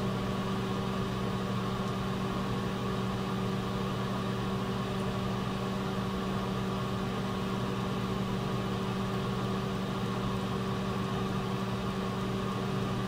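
Microwave oven running: a steady hum with the fan and turntable motor.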